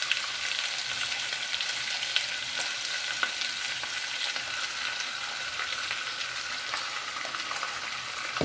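Boneless chicken thighs frying in olive oil over a carrot and onion sofrito in a frying pan: a steady sizzling hiss dotted with many small crackles of spattering oil.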